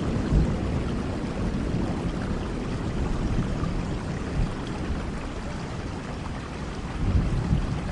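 Steady rain with a low thunder rumble that fades after the opening seconds, then swells briefly again near the end.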